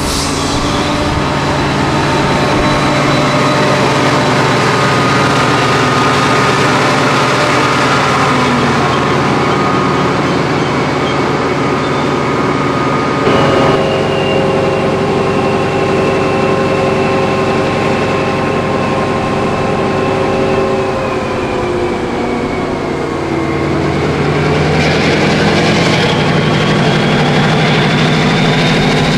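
Chiltern Railways Class 68 diesel-electric locomotive's engine running loud and steady. The engine tone slides down, then rises again over the last few seconds, with exhaust puffing from the roof.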